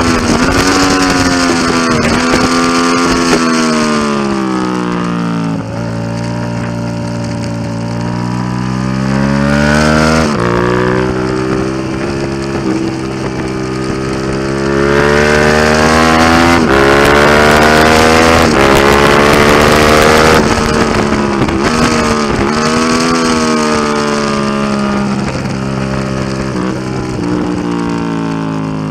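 2004 Suzuki SV650's 645 cc V-twin through a Delkevic aftermarket exhaust, ridden hard on track: the revs fall in steps as the bike brakes and shifts down, then climb through the gears under acceleration, loudest about 15 to 20 seconds in, and step down again near the end.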